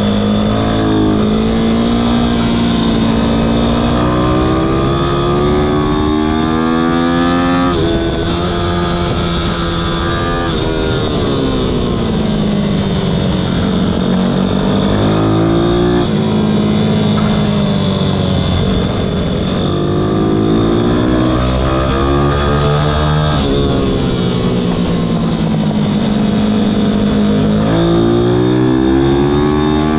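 Ohvale minibike engine heard from on board at racing speed: its pitch climbs hard, drops suddenly at each upshift, then falls away as the bike slows for corners, several times over.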